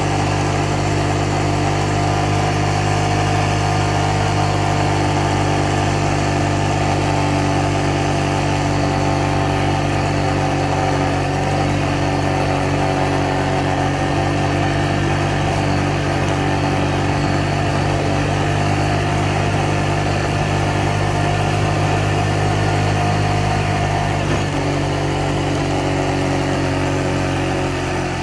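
Small off-road vehicle's engine running at a steady speed, its note shifting slightly about 24 seconds in.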